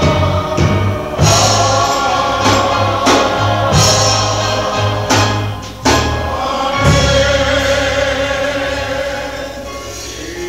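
Gospel choir singing with a band: bass notes and sharp drum hits under the voices, then the song closes on one long held chord that slowly fades.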